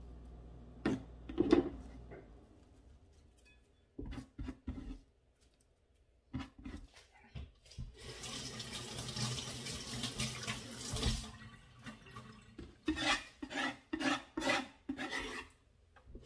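Knife scraping chopped parsley off a wooden cutting board into a bowl, with a few sharp clicks. Then a kitchen tap runs into a stainless steel sink for a few seconds, followed by a run of clattering knocks in the sink.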